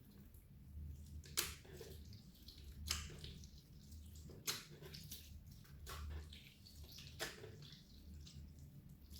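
Clear slime being kneaded and folded by hand, making wet squishes and sharp popping clicks about every one and a half seconds as trapped air bursts.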